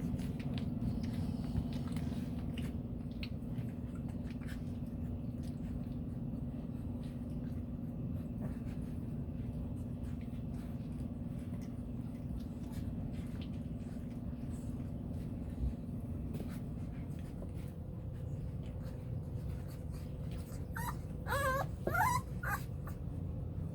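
Three-and-a-half-week-old Bluetick Coonhound puppies playing, with small growls and scattered clicks, and a short run of high, wavering whines and yelps near the end, over a steady low hum.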